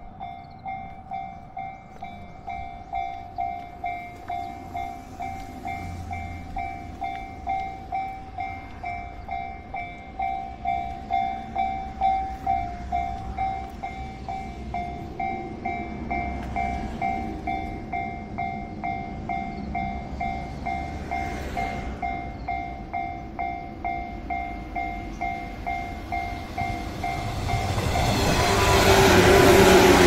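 Japanese railway level-crossing warning bell dinging steadily, about twice a second. Near the end a train arrives and runs past close by, drowning the bell out.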